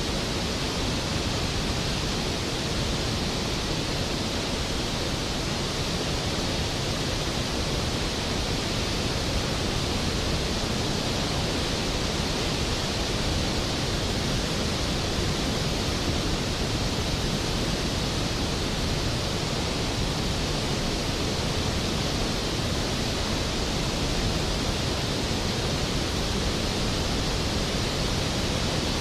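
Skógafoss waterfall thundering: a steady, dense rush of falling water with no breaks or distinct events.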